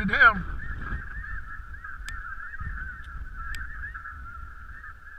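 A chorus of snow geese calling, many overlapping yelping calls blending into a steady drone. It opens with the tail of a few louder, nearer calls, and two faint clicks come through partway in.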